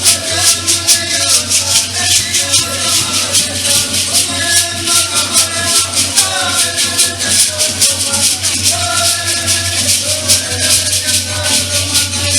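Latin music with maracas shaking a steady, even rhythm under a melody, over a constant low hum.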